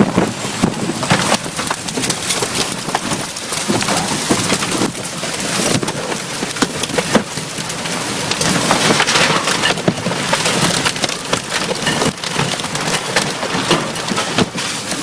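Storm noise: dense pelting of wind-driven rain or hail, full of sharp cracks and knocks like debris striking.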